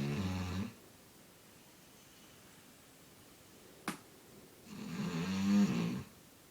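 A man snoring: one snore trailing off in the first second, a single sharp click about four seconds in, then another long snore near the end.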